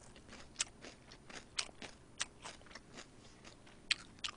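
Close-miked chewing of soy sauce fried chicken: soft, irregular crunches and wet mouth clicks, about two or three a second.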